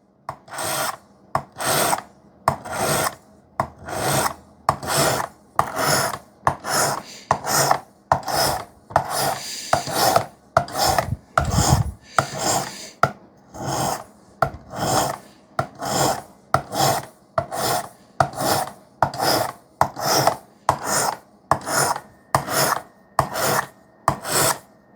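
Steel knife blade drawn in repeated strokes across a diamond sharpening plate on a Work Sharp guided sharpening system, each stroke a short rasping scrape. The strokes come evenly, a bit more than one a second, with brief gaps between them.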